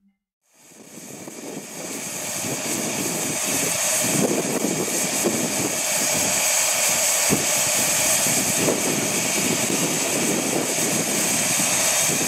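The miniature steam locomotive Southern Maid, a 15-inch-gauge 4-6-2, letting off steam in a loud, steady hiss that fades in over the first couple of seconds, with a faint steady tone under it. A few faint knocks come through now and then.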